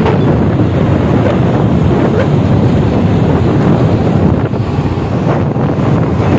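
Loud, steady wind buffeting the microphone of a handheld phone while riding on a moving motorbike.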